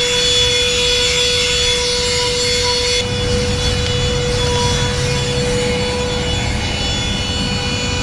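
Cordless handheld vacuum cleaner running with a steady high whine as its nozzle is drawn over a tent floor. A heavier rush of air joins in about three seconds in.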